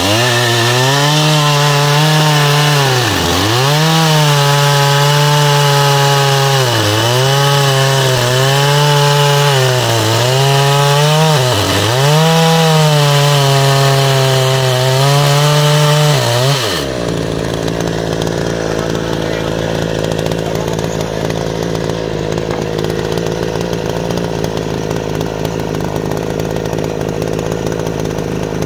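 Oleo-Mac GSH 510 two-stroke petrol chainsaw at high revs, cutting through a large log. The engine speed dips and recovers several times as the chain bites into the wood. About 17 seconds in the sound changes abruptly to a steadier, somewhat quieter run of the saw.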